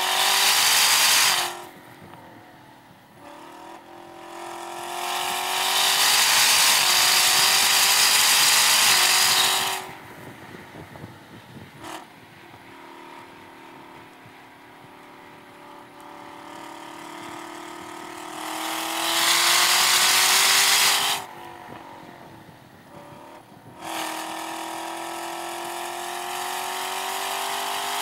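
Chevrolet Camaro ZL1 1LE's supercharged 6.2-litre V8 at track speed, pulling hard with a rising pitch in two long full-throttle runs. Between them the engine drops to a much quieter lift-off and coast through the corners, with a steadier part-throttle stretch near the end.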